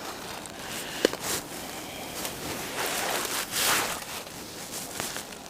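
A person's footsteps crunching and rustling irregularly on the forest floor, with a sharp click about a second in and a louder scuffing burst past the middle.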